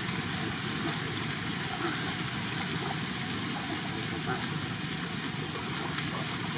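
A boat's motor running steadily at idle, with water sounds under it.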